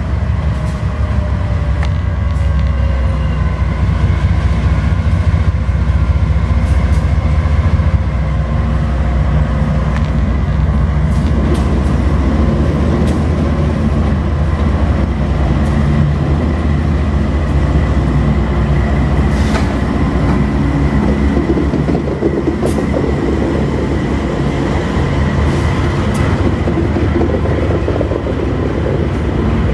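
A string of six diesel-electric freight locomotives running through in consist with a steady deep engine drone that grows fuller as they come alongside, with wheels clicking over the rail joints.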